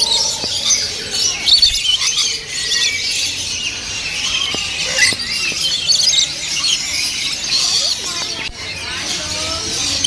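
A flock of lories and lorikeets calling, many shrill squealing and screeching calls overlapping.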